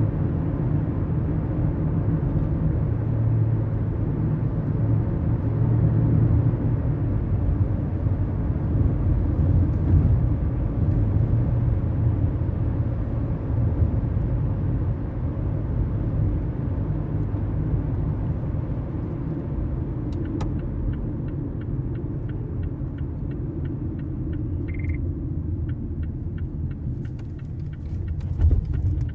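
Mazda CX-5 small SUV heard from inside the cabin while driving: a steady low engine and road rumble that slowly eases off. In the last third a regular light ticking starts, with one short beep and a thump near the end.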